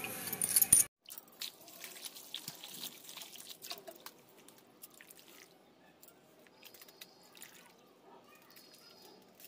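Small morali fish being washed by hand in a steel bowl of water: quiet sloshing, light splashes and drips as fingers swish through them. A brief louder metallic clatter at the very start stops suddenly.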